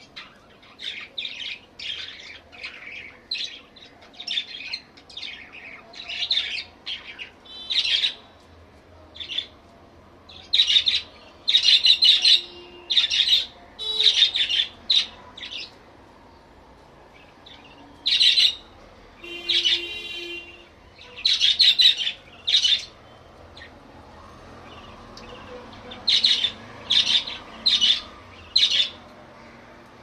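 Caged budgerigars chirping and squawking: short, harsh, high calls repeated in quick runs, with a few brief lulls.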